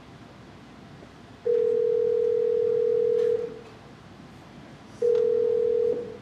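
Telephone ringback tone played over the hall speakers: a steady single-pitch beep about two seconds long, then a second shorter beep that cuts off as the call is answered.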